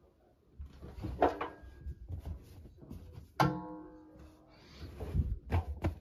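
Hand knocking about inside the stainless-steel drum of a front-load washing machine among the clothes. Two sharp knocks each leave a ringing metallic tone that dies away over about a second, followed by a few dull thumps near the end.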